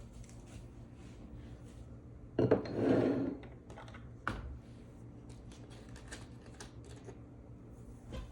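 A match struck to relight a candle: a sharp scrape a little over two seconds in, then about a second of flaring hiss. Small clicks and clinks of handling come before and after, with a sharp knock a second later.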